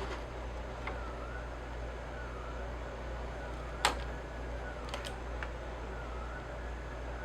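A faint siren, its pitch rising and falling about once a second, over a steady low hum. A single sharp click stands out about halfway through, with a few lighter clicks around it.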